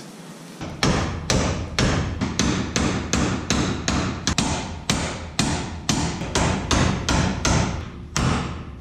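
A hammer repeatedly striking the steel front suspension parts beside the brake drum of a 1965 Chevy C10 pickup. It lands quick, even blows, about three a second, starting about half a second in.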